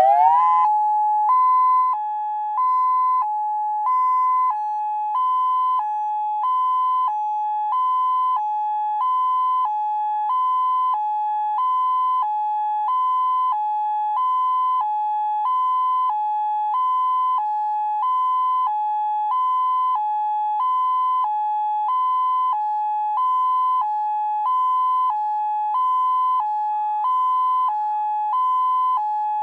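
Electronic siren sounding a hi-lo signal: after a quick rising sweep, a loud steady tone switches evenly back and forth between a higher and a lower pitch, each note about two-thirds of a second. It is the siren's alternate steady/hi-lo alert, set off by an FSK radio activation during a simulated system test.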